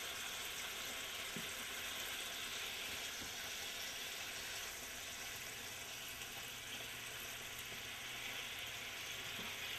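Fish curry gravy sizzling steadily in a nonstick pan as a slotted spatula turns the fish, with a few faint knocks of the spatula against the pan.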